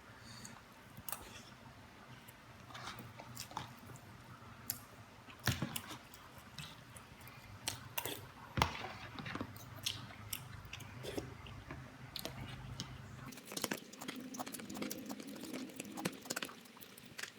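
Close-up chewing of instant noodle soup and rice: wet mouth noises and many small clicks, with a few sharper clicks among them. A low steady hum underneath stops about 13 seconds in.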